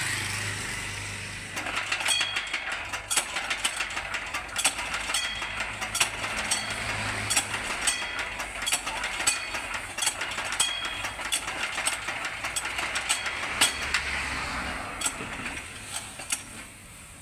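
Hand work on a diesel weeder engine: irregular metallic clicks and rattles, about two a second, as parts at the top of the engine are worked with hands and tools.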